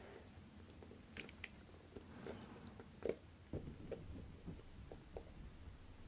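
Faint, scattered small clicks and taps of steel tweezers and gloved fingers handling parts on a watch movement in its metal holder, the sharpest tap about three seconds in.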